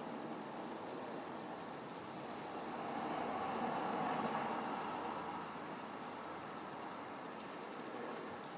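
Steady rushing background noise, swelling as a vehicle passes about three seconds in and fading again by six seconds, with a few faint, brief high chirps.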